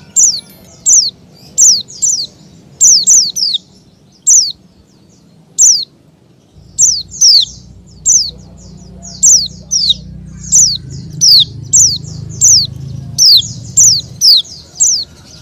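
A bird calling over and over with short, sharp, high notes, each falling quickly in pitch, about two or three a second with a few short pauses. A low hum runs beneath the calls through the middle of the stretch.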